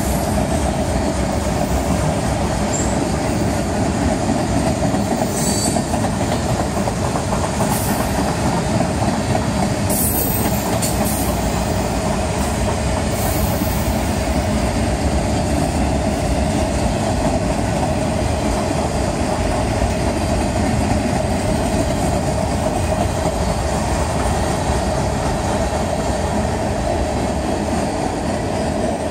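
Freight train cars rolling past: a steady rumble and clatter of steel wheels on the rails, with a few brief high squeals in the first half.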